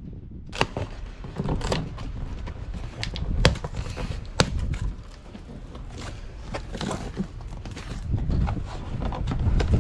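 Cardboard boxes being handled and opened by hand: rustling and scraping of the cardboard flaps, with many sharp knocks and taps throughout and a low rumble beneath.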